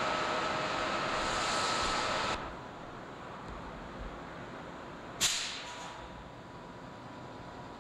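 Subway train noise with a steady whine over it that cuts off abruptly about two and a half seconds in, leaving quieter station background. About five seconds in comes one sudden, short, sharp hiss.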